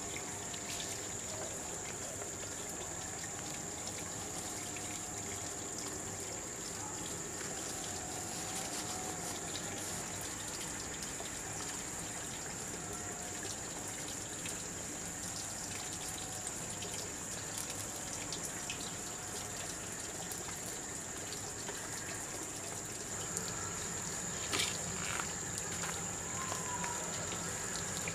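Steady rushing of flowing water, with a constant high-pitched whine over it; a couple of light knocks about 24 seconds in.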